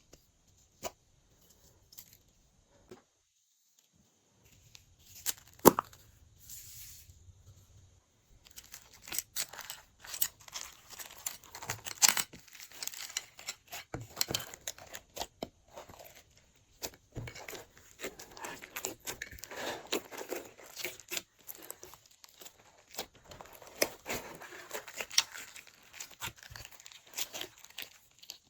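Glossy slime being squished and stretched by hand, giving sticky crackling and popping clicks: a few scattered clicks at first, then a dense crackle from about eight seconds in.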